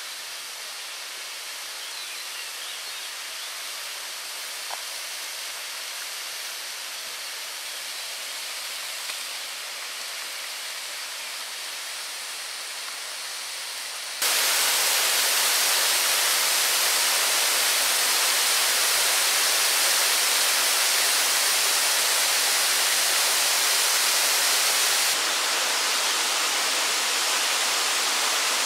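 Waterfall: falling water making a steady rushing hiss. About halfway through it suddenly becomes much louder and brighter, then stays even.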